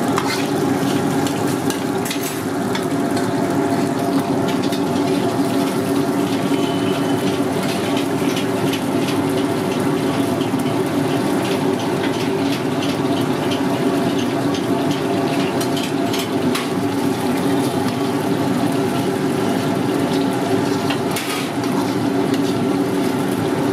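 Battered paneer pieces deep-frying in hot oil in an iron kadhai: a steady sizzle over a steady low hum, with a few light clinks of the metal skimmer against the pan.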